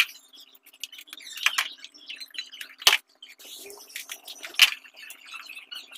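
Irregular rustling, tapping and a few sharp clicks of a white plastic-insulated electric cable being handled and coiled by hand.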